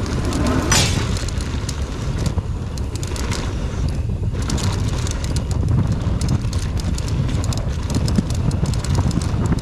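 Wind buffeting the microphone as a downhill mountain bike rolls fast down a dirt trail, with tyre noise on the ground and frequent clicks and rattles from the bike. A brief loud rasp comes just under a second in.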